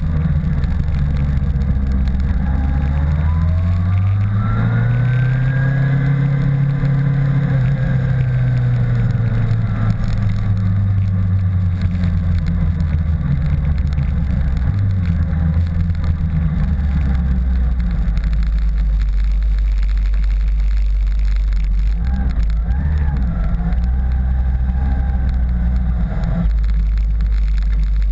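Motorcycle engine running under the rider: its pitch rises about four seconds in as the bike accelerates, eases back down a few seconds later, and then settles into a low, steady run through the second half as the bike slows to a stop.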